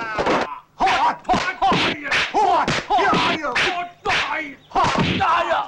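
Dubbed kung fu fight sound effects: a quick run of swishing strikes and hits, about three a second, most of them paired with a short shout or grunt from the fighters.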